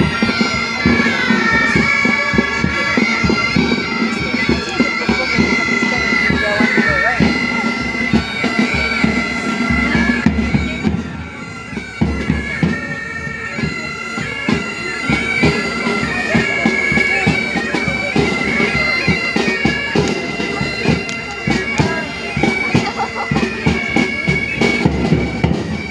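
Bagpipes playing a march tune over a steady drum beat, dipping briefly in loudness about eleven seconds in.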